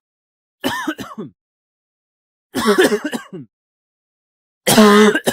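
A person coughing, three short bouts about two seconds apart.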